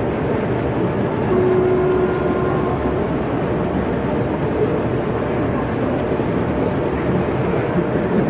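Steady exhibition-hall din: murmuring crowd chatter mixed with the running rumble of 0 gauge model trains on the layout.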